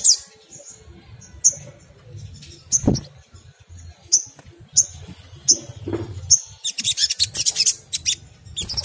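Sunbird calling: sharp, high single chirps about once or twice a second, breaking into a rapid, chattering twitter near the end.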